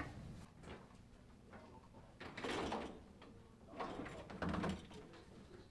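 Shuffling, scuffing movement of several people getting up and walking across a room, with a click at the start and two short bursts of scraping noise about two and four seconds in.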